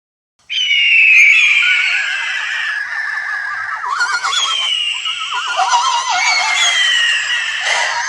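Griffin/hippogriff creature sound effect: shrill, bird-like screeches that fall in pitch, repeating and overlapping with a wavering lower cry. It starts abruptly about half a second in.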